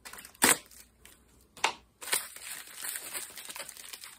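Cardboard mailer packaging being torn open and handled: two sharp crackles, about half a second and a second and a half in, then steady rustling and crinkling of the packaging.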